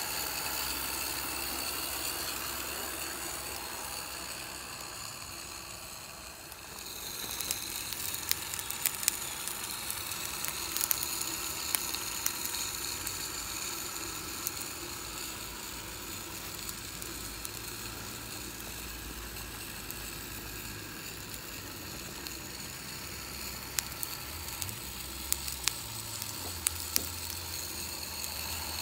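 Three-cylinder, gear-driven live-steam model locomotive with a vertical boiler running: a steady hiss of steam and exhaust, dipping briefly about six seconds in and coming back louder a second later, with scattered sharp clicks.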